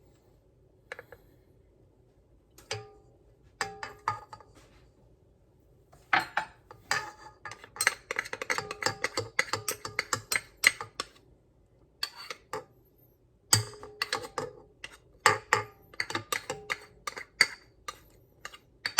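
A kitchen utensil clinking and scraping against a measuring cup and bowl as sourdough discard is scooped out and knocked loose. A few scattered taps come first, then a dense run of rapid clinks, a short pause, and a second run.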